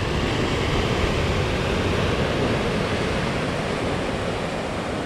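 Ocean surf: waves breaking and washing toward the beach, an even rushing noise that holds steady throughout.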